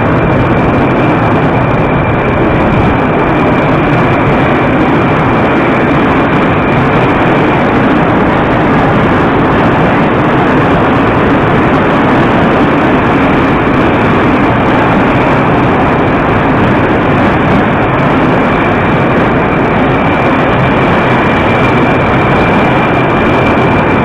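A Moscow Metro 'Moskva-2019' train pulling out of the station and running past: a loud, steady rumble of wheels and running gear, with a high steady whine over it for the first several seconds and again near the end.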